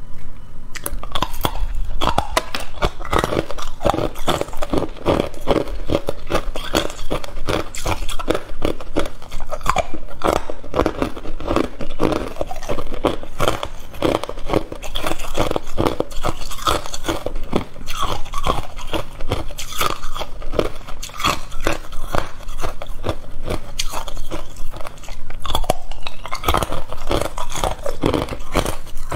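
Hard ice being bitten and chewed in the mouth: a dense, continuous run of sharp cracks and crunches.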